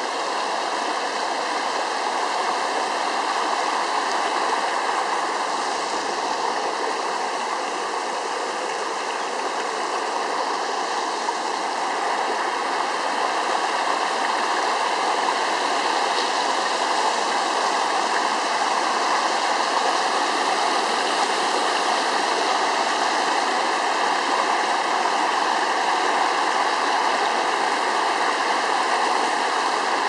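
Shallow river water rushing steadily over a low line of rocks.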